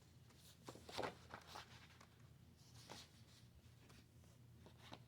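Faint, soft rustles and light taps of tarot cards being handled, scattered over a quiet room hum.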